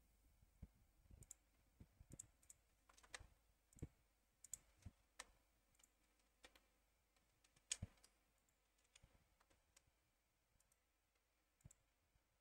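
Faint computer mouse and keyboard clicks at an irregular pace, one a little louder a little past the middle.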